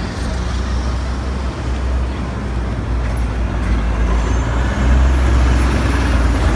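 A city bus passing close by in street traffic, its engine a low rumble that grows louder in the second half as the bus goes past.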